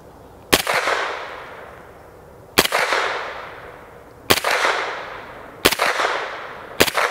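Five suppressed 9mm shots from a POF-5 pistol (an MP5 clone) fitted with an AAC Echo 9 suppressor, fired one at a time at an uneven pace of one to two seconds apart. Each sharp report is followed by a ring-out that fades over about a second. The rounds are standard-velocity 115-grain 9mm ball, not subsonic loads.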